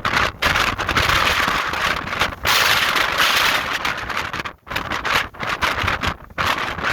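Strong wind gusting in a storm, a loud rushing hiss that surges and drops away several times, with low rumble from wind buffeting the microphone.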